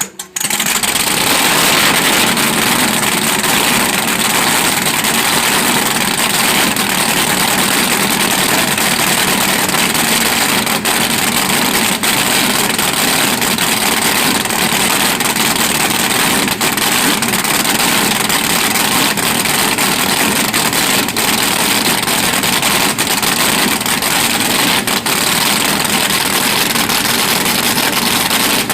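Maritimo race boat's engines starting up, coming in loud about half a second in, then running steadily with a dense rumble and strong hiss.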